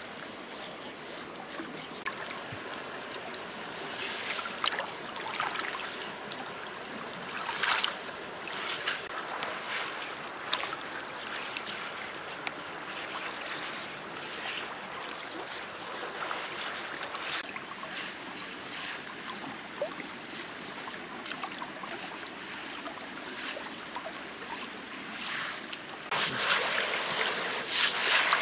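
Shallow river water running steadily, with hands scooping and piling wet river gravel and stones; the stones crunch and clatter in a few bursts, loudest near the end. A thin steady high tone runs underneath.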